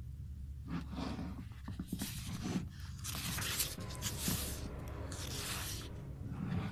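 Paper rustling as magazine pages are turned and smoothed flat by hand, in about four swishes of a second or less.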